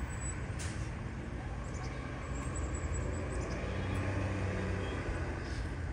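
Steady low rumble of distant road traffic, with one faint click about half a second in.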